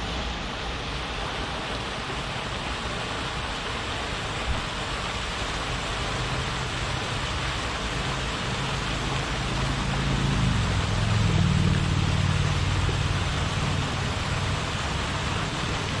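Lake fountain jets splashing down onto the water, a steady rain-like hiss. A low rumble builds in about halfway through and is loudest around ten to thirteen seconds in.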